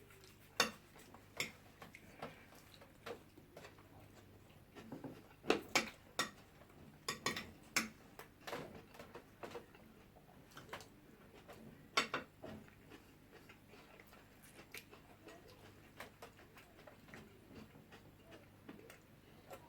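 People eating jollof rice and fish: irregular sharp clicks and taps of eating and utensils on dishes, thickest about five to nine seconds in and again near twelve seconds.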